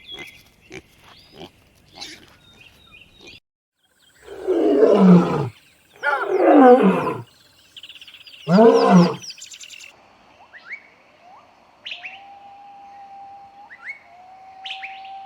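A big cat roaring three times, each roar loud and falling in pitch, about two seconds apart. Faint bird calls and whistles follow near the end.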